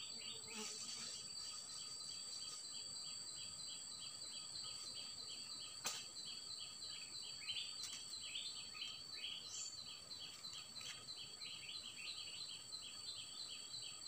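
Forest insects: a steady high-pitched drone with a regular chirping of about three chirps a second running on underneath it. One sharp click about six seconds in.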